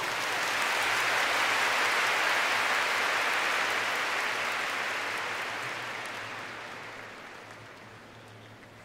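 Large stadium audience applauding, swelling in the first couple of seconds and then slowly dying away after the song has ended.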